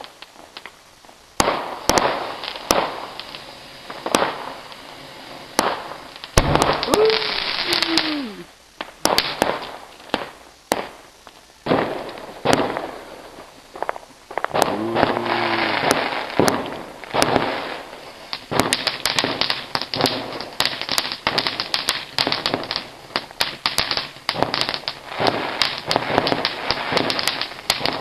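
Fireworks going off: a string of sharp bangs and crackles, with a whistle that falls in pitch about seven seconds in, and a dense run of rapid crackling bangs through the second half.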